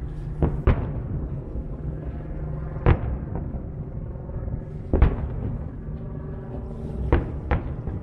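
Aerial firework shells bursting: six sharp bangs, a quick pair near the start, single ones about three and five seconds in, and another pair near the end, over a steady low background.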